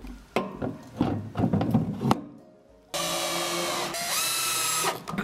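A few clinks and knocks of metal parts being fitted together. Then a cordless drill drives a screw into wood for about two seconds, its motor pitch stepping up partway through before it stops.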